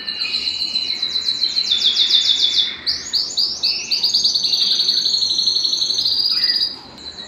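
Domestic canary (Belgian canary) singing a song of fast rolling trills, runs of rapidly repeated high notes that change pace between phrases, breaking off briefly near the end.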